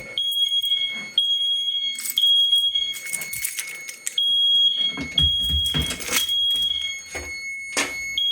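Fire alarm mini horns sounding a high-pitched beep in the code 3 (temporal-three) pattern: three beeps, a pause, then three more. Sharp clicks and knocks are heard over it.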